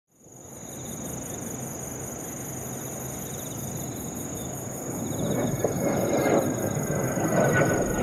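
Insects buzzing steadily at a high pitch, joined from about five seconds in by the rising rush of a Kawasaki T-4 jet trainer's twin turbofan engines, growing louder as it approaches.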